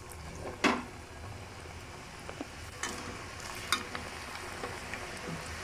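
Moon-shaped maida biscuit dough pieces deep-frying in hot oil: a steady sizzle with a few sharp clicks about one, three and four seconds in.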